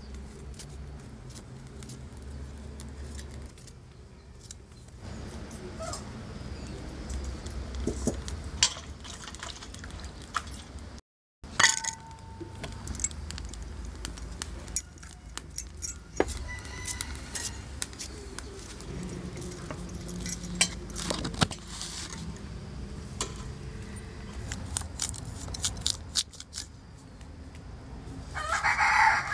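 Scattered light clicks, scrapes and clinks of hand food preparation, knife on potato and steel bowls, over a steady low rumble. A rooster crows near the end.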